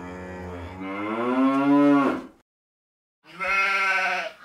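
Cow mooing: one long moo that rises in pitch toward its end, then after a short pause a second, shorter and higher call.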